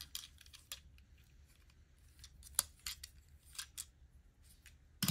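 Faint, scattered small clicks and taps of a hard plastic toy plane (a Disney Doorables Let's Go vehicle) being handled and set down among other plastic toy cars, with a louder knock at the end.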